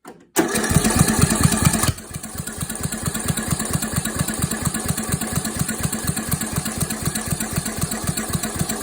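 Small engine being cranked over, chugging in an even rhythm of about five or six beats a second without catching and running: an engine that won't start. It is louder for the first second and a half, then steadier and a little quieter.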